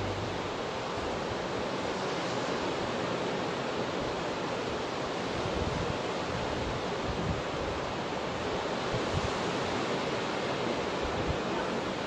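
North Sea surf washing steadily onto the beach, with wind rumbling on the microphone.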